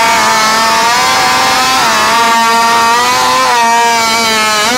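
Modified two-stroke chainsaw running flat out as it cuts through a log, a loud, high-pitched engine note. The pitch dips briefly twice and climbs back each time.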